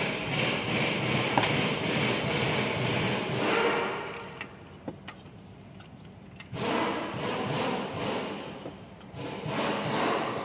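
Wrench working the rocker-arm valve-clearance adjusters on a Mitsubishi 4N15 diesel cylinder head: metal rasping and scraping in three stretches, the first about four seconds long, with quiet gaps between.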